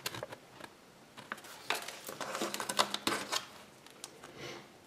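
Close handling of a small paper leaflet and a plastic toy figure: a quick run of crisp crinkles and clicks between about one and three and a half seconds in, with lighter rustles around them.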